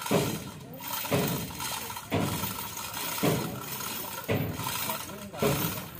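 Chain block being hauled by hand to lift a truck engine: the chain clanks in even strokes about once a second, each clank fading before the next.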